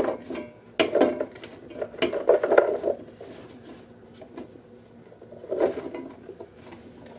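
Slices of raw sweet potato tipped from a plastic container into an enamel roasting pan, thudding and clattering against the pan and each other. The clatter is heaviest in the first three seconds, comes again briefly about five and a half seconds in, and is quieter in between.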